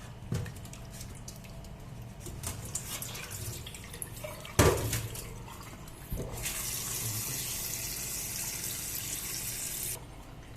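Water running from a tap into a sink for about three and a half seconds, starting about six seconds in and cutting off sharply near the end. Before it, small clicks of handling and one sharp knock about halfway through.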